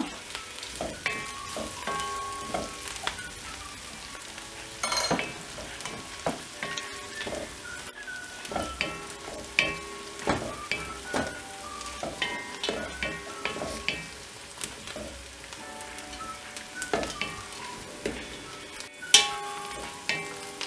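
Sliced onions and whole green chillies sizzling in oil and ghee in a nonstick pot, stirred with a wooden spoon that scrapes and knocks against the pot about once or twice a second, with a sharper knock about five seconds in and a louder one near the end.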